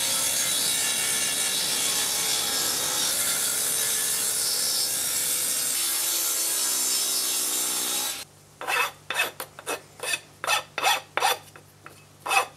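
Table saw running and cutting wooden blocks, a loud steady noise that stops abruptly about eight seconds in. Then a hand file rasping the sharp edges off a small wooden block in quick strokes, about three a second.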